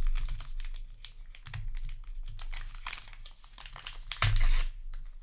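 Crinkling of a foil trading-card booster pack wrapper and cards being handled: a run of small rustles and clicks, with a louder crinkle about four seconds in.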